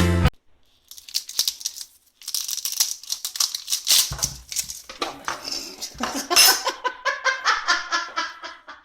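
A person laughing: breathy, hissing bursts at first, then quick repeated voiced 'ha-ha' bursts, about four or five a second, in the last few seconds.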